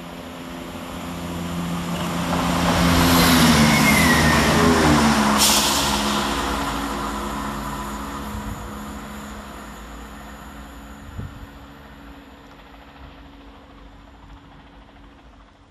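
A Class 168 Clubman diesel multiple unit passing through the station without stopping. Its engine and wheel noise builds to a peak about four seconds in, and the engine note drops in pitch as it goes by. The sound then fades away as the train recedes.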